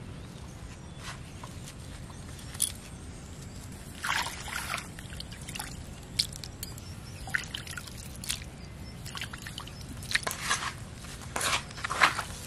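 Hands squeezing and kneading soaked bread and crumb fish bait in an aluminium plate, giving irregular short wet squishes that grow busier toward the end. A splash of liquid is poured onto the mix partway through.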